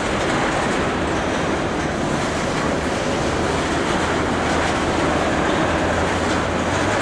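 CSX freight train rolling past steadily, its wheels rumbling on the rails, with a low steady hum underneath.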